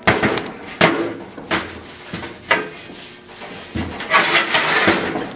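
Scattered knocks and clatter of objects being handled in a workshop, about five separate knocks, then about a second of denser scraping noise about four seconds in.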